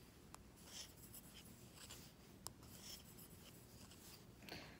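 Faint soft rustling of wool yarn drawn over wooden knitting needles, with a few light clicks of the needles as stitches are worked.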